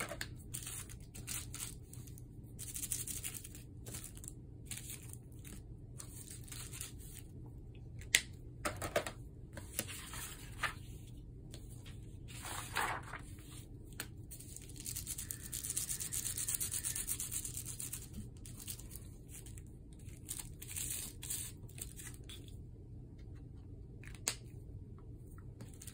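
Felt-tip markers scrubbing over bubble wrap and the plastic rustling as it is pressed onto paper, in scattered stretches with a longer one past the middle. A couple of sharp clicks, about eight seconds in and near the end.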